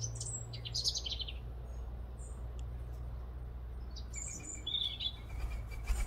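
Small songbirds chirping in short high twitters and trills, a burst in the first second and more around four to five seconds in, over a steady low hum. A pigeon's wings clatter at take-off right at the end.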